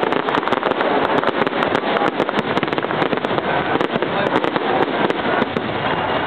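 Fireworks display: a dense, continuous barrage of crackling pops and bangs, many per second and steady in loudness throughout.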